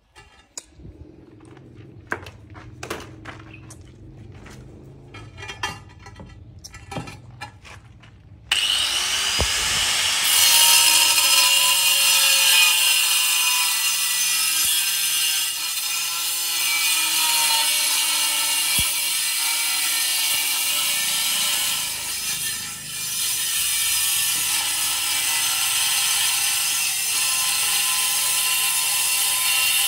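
Electric angle grinder with a cutting disc slicing through a ceramic wall tile. After a few light knocks and clatter, the grinder switches on abruptly about eight seconds in, spins up, and runs loud and steady through the cut, with a brief dip in level about two-thirds of the way through.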